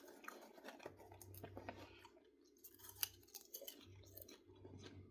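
Faint chewing and crunching of popcorn, with scattered small clicks and one sharper click about three seconds in.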